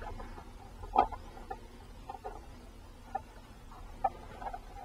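Light, scattered clicks and handling noises, about six in all with the loudest about a second in, as hands fit a RAM mount to the back of a GPS guidance console and set its screws.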